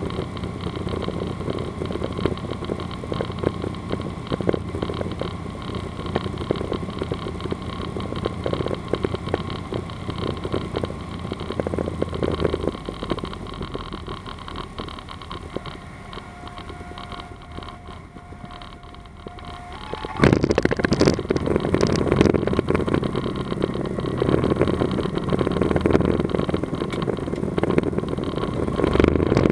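Cockpit sound of a Cessna 182RG's six-cylinder engine and propeller on landing approach, going quieter as power comes off. In the flare a steady stall-warning tone sounds for about four seconds, then at touchdown, about 20 s in, a louder rumble of the wheels rolling on the runway takes over.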